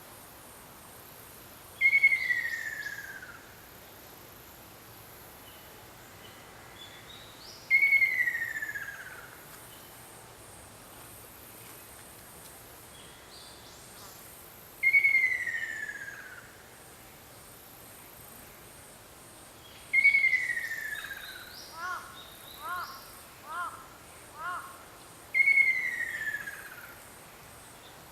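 Ruddy kingfisher calling: five long descending trilled calls, each sliding down in pitch over about a second and a half, repeated about every six seconds. Between the fourth and fifth call a bird gives four short up-and-down notes, and insects hiss faintly throughout.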